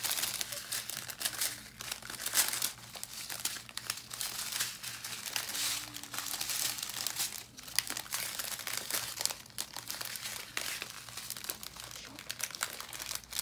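Small plastic bags of diamond-painting drills crinkling and rustling as they are picked up, shuffled and stacked by hand, in an irregular run of crackles.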